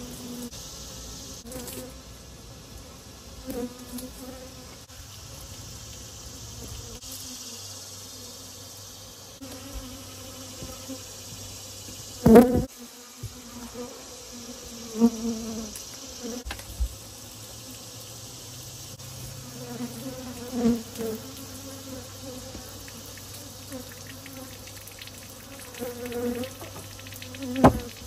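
Honey bees from an aggressively defensive colony buzzing close around the phone, single bees passing by in short hums every couple of seconds. A loud sharp knock about twelve seconds in, and another near the end.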